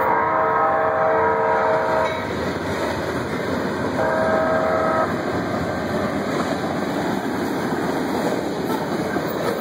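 Freight train's diesel locomotive horn: one long blast that stops about two seconds in, then a second, one-second blast near the middle. Under the horn, the steady rumble and rattle of freight cars rolling past through the crossing.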